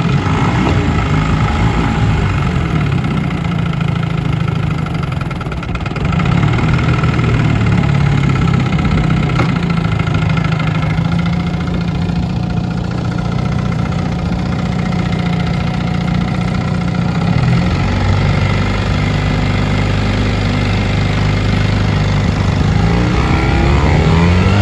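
1962 Commodore 7.5 hp two-stroke outboard, built by West Bend, running steadily under way. Its pitch shifts about two-thirds of the way through, then rises near the end as the throttle is opened.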